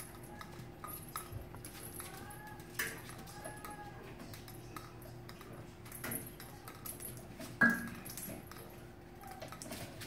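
A puppy playing with a ball toy hung from a metal stand: scattered clicks and taps of paws and the toy on a hardwood floor, with light metallic jangling of the stand, and one louder knock about three quarters of the way through.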